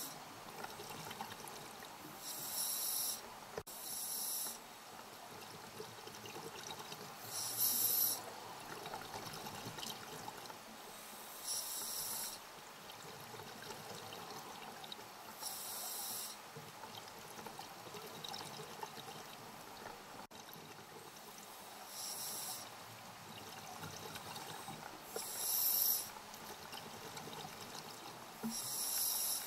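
Scuba diver breathing through a regulator underwater: short bursts of hiss and bubbling come every few seconds over a steady low water wash.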